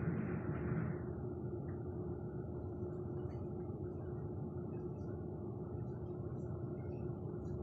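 Steady rumble of a passenger train running along, heard from inside the carriage, with a steady hum underneath. The noise is brighter and a little louder for about the first second, then settles to an even rumble.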